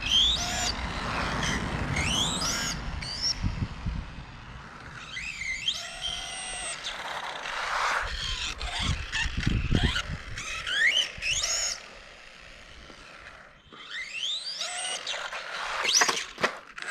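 Electric motor and drivetrain of a 1/18 RC monster truck whining up in pitch in repeated full-throttle bursts, over rough tyre and gear noise. The driver takes the slipper-like noise for a failing differential.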